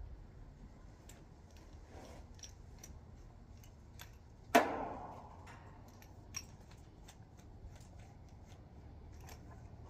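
Hand tools and metal parts being handled, making scattered small clicks and ticks. About halfway through comes one sharp metallic clank that rings briefly.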